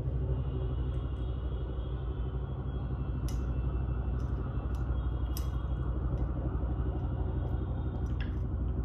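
Cat chewing chicken and meat bones from a bowl, with a few short sharp crunches and clicks scattered through, over a steady low hum.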